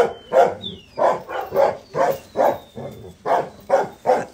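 Dogo Argentino barking over and over at an even pace, about two barks a second.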